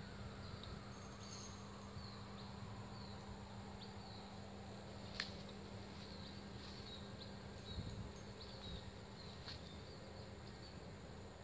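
Faint steady insect buzz with repeated short, high falling chirps, and a sharp click about five seconds in, another weaker one later.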